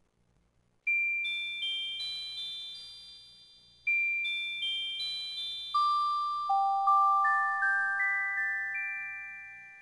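Background music: a slow music-box melody of single high chiming notes, each ringing and fading. It starts about a second in, after a brief silence.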